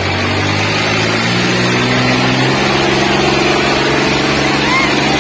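Diesel engine of a modified Swaraj 855 competition tractor running hard, its pitch stepping up about a second in and again midway as it is revved.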